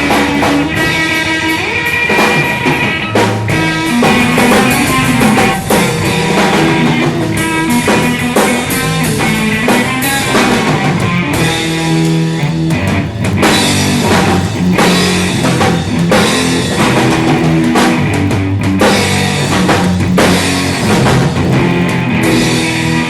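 A rock band playing: guitars and drum kit, loud and continuous.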